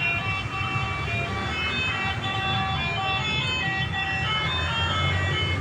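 A telolet multi-tone truck horn playing a quick tune of short bright notes, over a steady low engine rumble.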